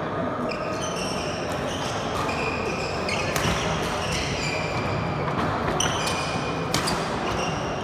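Badminton rally: several sharp racket strikes on the shuttlecock among many short, high squeaks of shoes on the wooden court, over a murmur of voices.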